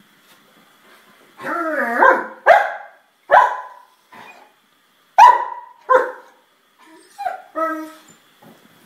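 German Shepherd barking: a drawn-out bark with a wavering pitch, then about six short, sharp barks at uneven intervals.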